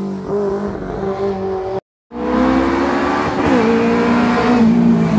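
Racing car engines accelerating hard, the pitch climbing, dropping sharply at a gear change about three and a half seconds in, then climbing again. The sound cuts out briefly about two seconds in.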